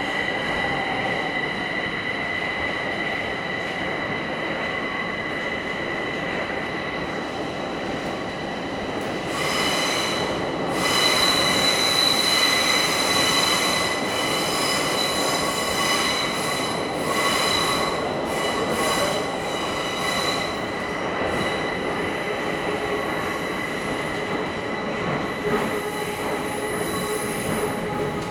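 Bucharest Metro train running through a tunnel, heard from inside the carriage: a steady rumble with high, steady wheel-squeal tones. It grows louder for a few seconds about ten seconds in, then settles back.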